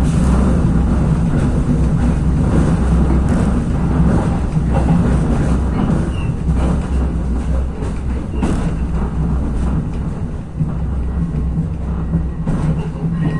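Interior sound of a Regionova diesel railcar running at speed: a steady low drone of the engine and wheels on the rails, with a few sharp clicks from the track.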